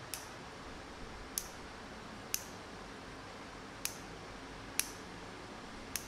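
Six light, sharp clicks at uneven intervals, roughly a second apart, over a steady faint hiss.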